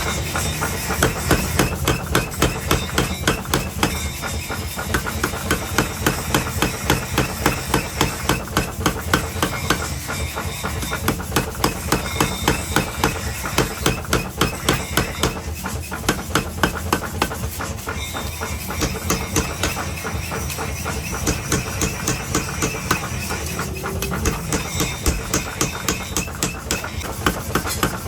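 Blacksmith hammering metal while forging an axe head: regular sharp blows at about three a second, with short lulls, over a steady low hum.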